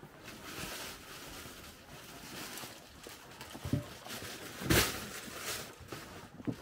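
Background hubbub of an indoor market corridor, a steady even hiss, with one sharp knock a little under five seconds in, the loudest sound.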